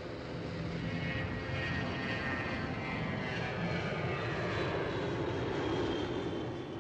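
Four-engine turboprop flying boat, a Shin Meiwa PS-1, flying low past. Its engine drone falls in pitch as it goes by.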